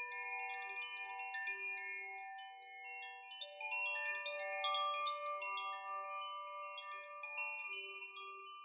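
Soft chimes ringing: many light, high pings over several sustained ringing tones, growing fainter near the end.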